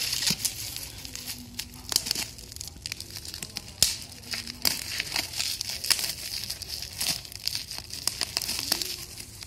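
Plastic bubble wrap crinkling and rustling as it is pulled and cut open with scissors, with a run of sharp crackles and snaps.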